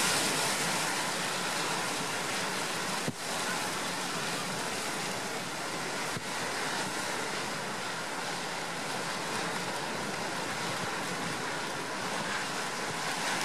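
Storm surf and gale-force wind: rough sea surging and breaking against a concrete breakwater as one steady, dense rush, with wind buffeting the microphone. The rush briefly drops out twice, about three seconds apart.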